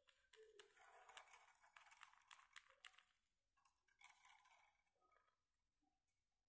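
Very faint rustling with many light ticks as gold glitter is shaken over a glue-coated plastic bottle and lands on paper. The rustling fades out about five seconds in.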